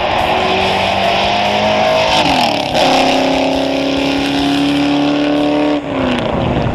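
1979 Ford Mustang Cobra accelerating hard away from the roadside, its engine and exhaust note climbing in pitch. The note drops sharply about two and a half seconds in, then climbs again, and drops once more near six seconds.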